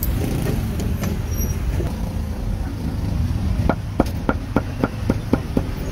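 A steady low rumble of street traffic throughout. In the second half, a run of about eight quick, evenly spaced knocks, roughly four a second: a cleaver chopping roast pork on a cutting board.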